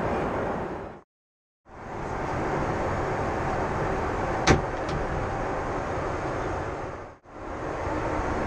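Steady airliner cabin noise in flight, a constant even rush, cutting out briefly about a second in. About halfway through comes a single sharp click as the lavatory's folding door is pushed open.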